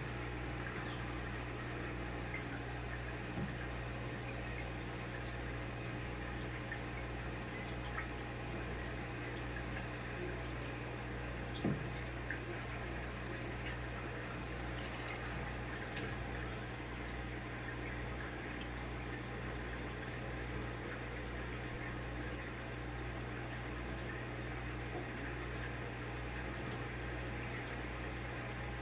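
Aquarium wave-maker pump and air bubbler running in the turtle tank: a steady low hum with an even pulse under a constant bubbling of water. A few light knocks come through, the loudest about twelve seconds in.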